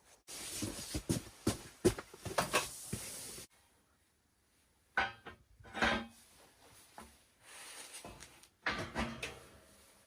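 Knocking and clattering of metal bed-frame parts being handled and fitted together. There is a short break in the middle, then more separate knocks and rattles.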